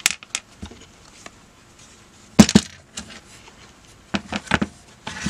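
Handling clicks and knocks of a multimeter's plastic case and screwdriver as the back screws are taken out. The loudest is a quick double knock about two and a half seconds in, and a few more clicks come near the end.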